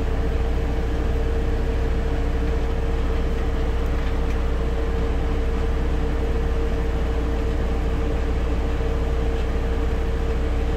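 A steady machine drone: a strong low hum with a constant mid-pitched tone over it, unchanging throughout.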